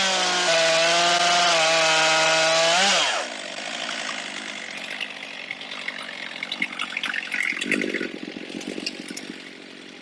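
Stihl MS362 two-stroke chainsaw on an Alaskan mill running at full throttle through a cherry log in a rip cut; about three seconds in the pitch rises briefly, then falls away as the engine winds down. After that, quieter clattering and rustling as the mill is handled and set down in dry leaves.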